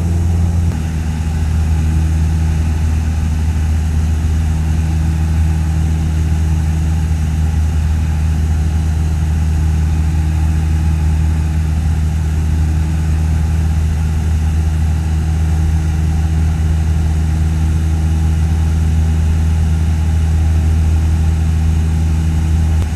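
Cessna 152's four-cylinder Lycoming engine and propeller droning steadily in flight, heard from under a pilot's headset ear cup.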